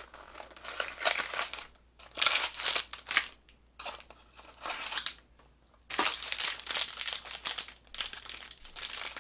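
Surprise-toy packaging being crinkled and torn open by hand, in several spells of rustling with short pauses, almost continuous over the last few seconds.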